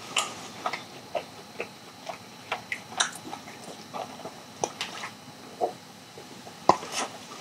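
Close-miked eating mouth sounds: small, irregular clicks and smacks of chewing. In the second half a plastic cola bottle is raised and drunk from, with a sharp click near the end.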